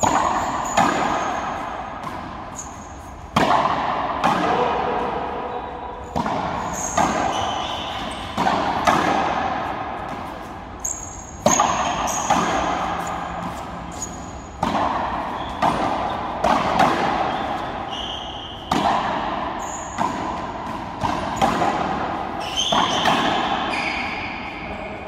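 Frontenis rally: a rubber ball struck by racquets and smacking off the concrete walls and floor, a sharp hit roughly every second at an uneven pace. Each hit echoes and dies away slowly in the high-walled court, with short high squeaks between hits.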